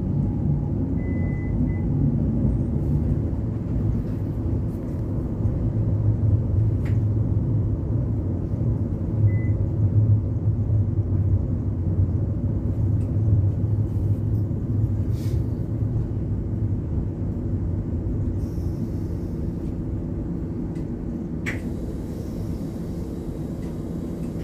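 CAF Urbos tram running at low speed, heard from inside the driver's cab as a steady low rumble that grows quieter toward the end. A short high beep sounds about a second in and again about nine seconds in, and a sharp click comes near the end.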